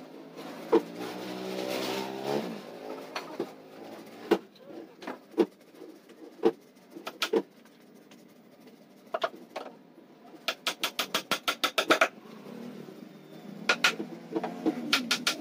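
Hammer blows driving nails into a plywood shelf frame: single sharp knocks about a second apart, then a quick run of about ten lighter taps a little past the middle.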